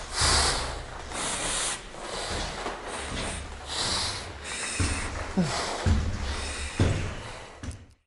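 Heavy, rasping breathing through the valves of an altitude-training mask, hard breaths about once a second from a man worn out by weighted stair climbing, with a few short moans in the second half.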